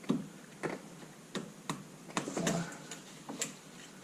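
A series of separate metallic clinks and knocks, about seven at irregular intervals, as hand tools and steering parts are handled and set down during work on a car's front suspension.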